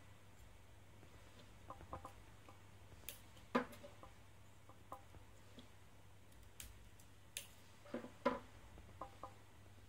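Small plastic parts clicking and tapping against each other and the wooden tabletop as they are handled and fitted with tweezers: a scattering of short sharp clicks, the loudest about three and a half and eight seconds in, over a faint low hum.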